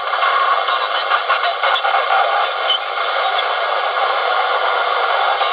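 Static hiss and band noise from a President Lincoln mobile radio's speaker while it receives on 26.445: a steady, narrow, telephone-like rush with no clear voice in it.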